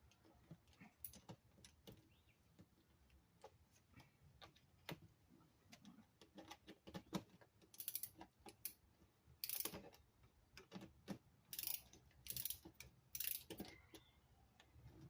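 Faint scattered clicks and a few short clattering bursts of hand tools working on a car dashboard, taking out the fasteners that hold the radio, with the louder bursts in the second half.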